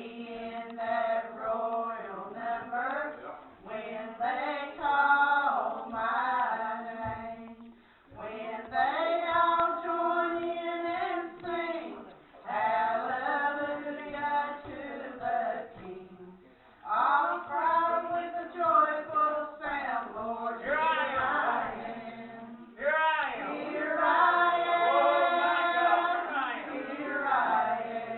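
A small group of women singing a hymn together, in sung phrases of a few seconds each with short breaks between them.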